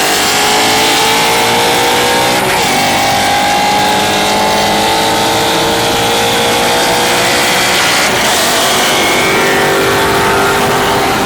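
Turbocharged rotary engine at full throttle, accelerating from a 40 mph roll. The pitch climbs steadily through the gears, with a shift break about two and a half seconds in and another about eight seconds in.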